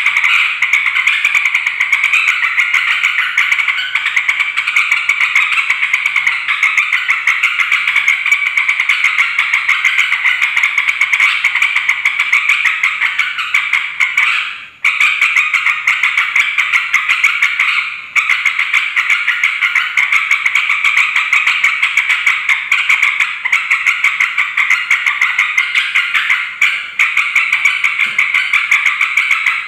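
Yellow-vented bulbul (trucukan) giving a noisy, rapid, unbroken chatter, with a few brief breaks. This is a lure call used to provoke other bulbuls into answering.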